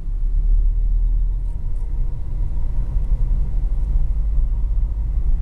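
Steady low rumble of a car driving along a city street: road and engine noise heard from inside the moving vehicle.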